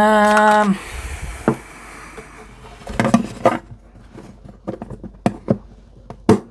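A brief steady pitched tone right at the start, cut off after under a second, then a scatter of light clicks and taps of small tools being handled on the workbench, such as a string height gauge.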